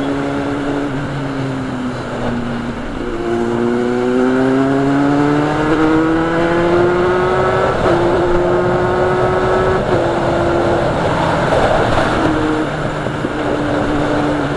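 Kawasaki Z800 inline-four engine with a loud exhaust, heard from the rider's seat while riding. The engine note holds, dips briefly, then climbs steadily for about five seconds as the bike accelerates, steps slightly about eight seconds in, and falls back to a lower steady note near the end.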